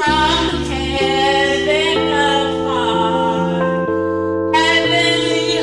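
A woman singing a karaoke song over a backing track of held chords that change about once a second.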